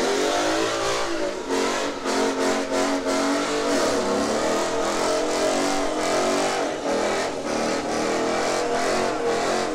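Car engine being revved hard, its pitch swooping up and down at first, then held high and fairly steady for several seconds.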